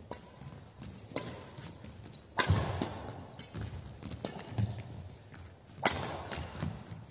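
Badminton rally: rackets striking the shuttlecock with sharp cracks, the loudest about two and a half seconds in and another near six seconds, each echoing round a large hall, with lighter clicks and the thud of players' feet on the court between.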